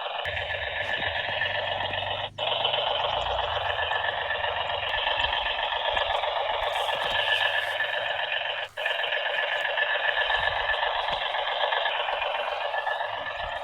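Small electric gear motors of RC toy vehicles whirring steadily with a thin whine. The sound cuts out for an instant twice, about two seconds in and again near nine seconds, then runs on.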